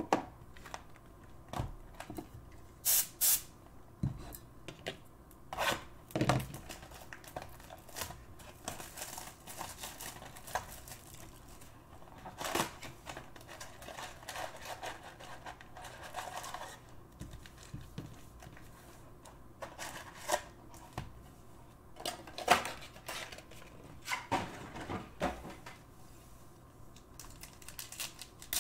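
Hands handling a cardboard Panini Prizm trading-card retail box and its wrapped packs: flaps opened, packs pulled out and set down in a stack. Scattered clicks and a few sharp knocks, with stretches of soft rustling.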